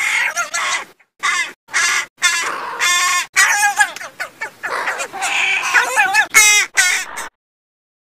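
Crows cawing: a rapid run of harsh caws, some close together or overlapping, stopping about a second before the end.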